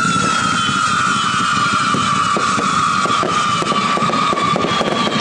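Fireworks display: a long whistle slowly sinking in pitch over several seconds, over a steady low rumble with scattered crackles and pops.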